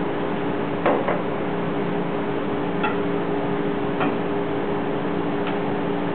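A few light clicks and taps of kitchen utensils, scattered and irregular, over a steady background hum and hiss.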